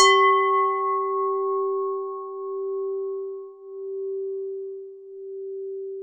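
Buddhist standing bell (singing bowl) struck once, ringing out in a long low hum that slowly swells and dips as it decays, its brighter overtones dying away within the first couple of seconds.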